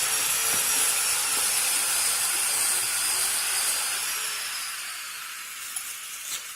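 A loud, steady hiss that starts abruptly and fades away over the last couple of seconds.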